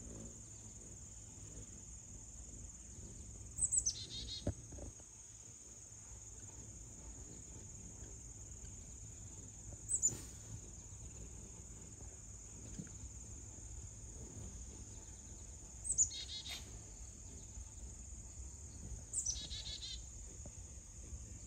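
Steady high-pitched insect drone, with a bird's short, falling calls standing out four times: about 4, 10, 16 and 19 seconds in.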